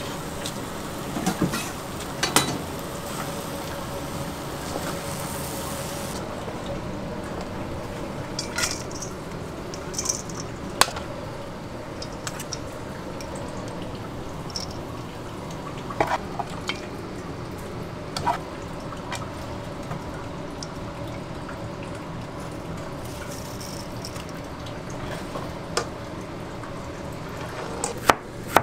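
A metal spoon scrapes and clinks against a large steel wok and bowl as a dry stir-fry of anchovies is mixed and scooped, with scattered sharp knocks over a steady kitchen hum. A knife starts chopping zucchini on a cutting board at the very end.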